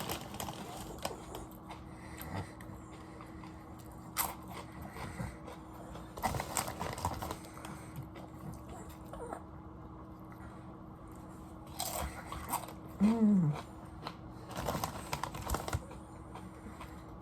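Potato chips being bitten and chewed close to the microphone, crisp crunching in scattered bursts with quieter spells between. About 13 seconds in comes a short falling hum from the eater.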